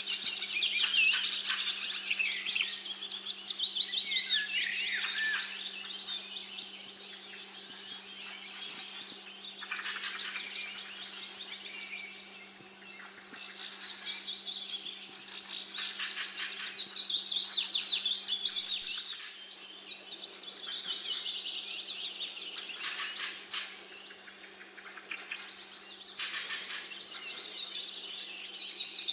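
Songbirds singing, with fast chirping and warbling phrases that come and go, louder in spells and quieter for a moment about twelve and twenty-four seconds in. A faint steady low hum runs underneath.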